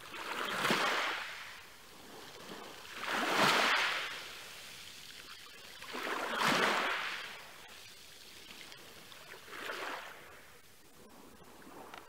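Small sea waves washing up on a beach, four swells of surf hiss about three seconds apart, the last one weaker.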